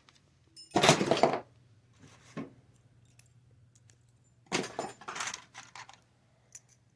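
Small metal parts clinking and clattering as they are handled, in several short bursts, the loudest about a second in and a longer run of clinks a little past the middle.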